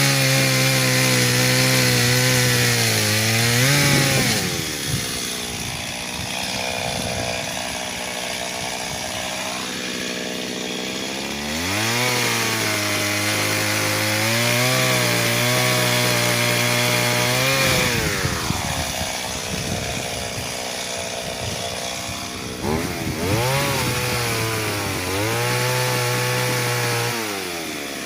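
Chainsaw cutting trees. The engine runs at high revs for a few seconds, drops back to idle, then revs up again; this repeats three times, with the last drop near the end.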